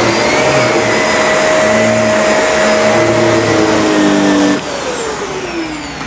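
Shark Navigator NV352 upright vacuum running over carpet, sucking up pieces of string. It runs steadily, and about four and a half seconds in it is switched off, its motor whine falling as it spins down.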